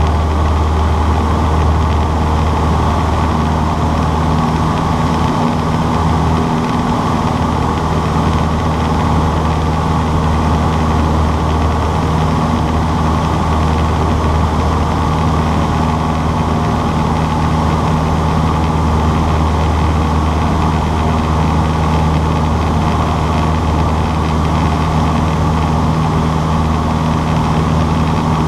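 Cessna 152's four-cylinder Lycoming O-235 engine and propeller running steadily under power in flight, heard from inside the cockpit as a constant low hum.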